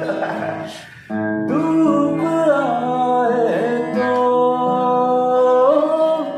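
A voice singing long, held, wavering notes over strummed acoustic guitar, with a fresh chord struck about a second in after a brief drop.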